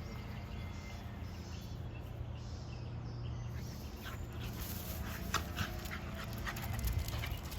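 Dogs, a Staffordshire terrier and a miniature Australian Shepherd, panting, with a faint whine a little past the middle and scattered light clicks in the second half.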